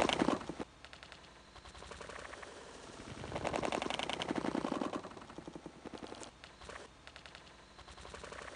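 A large smallmouth bass hitting a topwater lure: a loud splash right at the start, then a long, fast run of clicks while the hooked fish splashes at the surface, loudest a little past the middle.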